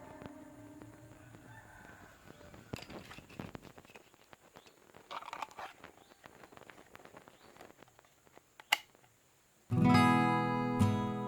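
Faint scattered clicks and light knocks, with one sharper click near the end, then after a brief dead silence strummed acoustic guitar music starts loud.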